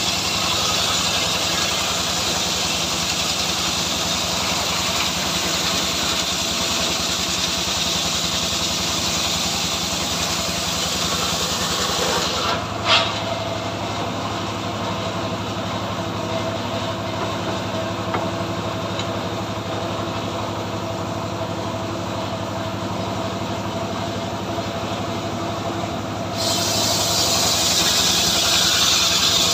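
Homemade engine-driven circular sawmill running steadily, its blade ripping a log for about the first twelve seconds. The blade then runs free with a single sharp knock near 13 s, and it bites into the wood again from about 26 s.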